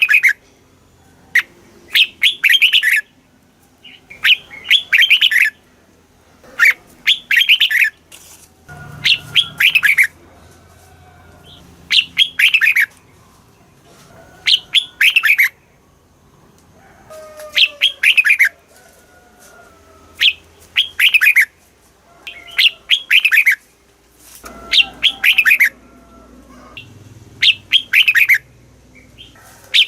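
Red-whiskered bulbul singing: loud, short whistled song phrases repeated about every two seconds, each a quick cluster of notes.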